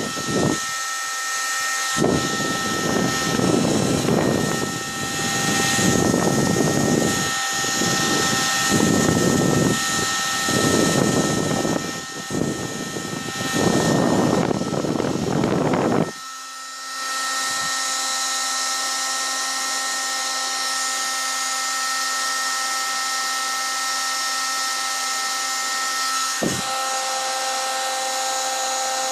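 Hand-held hair dryer running steadily with a high motor whine, drying glue on a sponge squishy. For the first half, air buffeting gives a heavy uneven rumble; about halfway through the rumble drops away, leaving a steady hiss and whine. There is a short thump near the end.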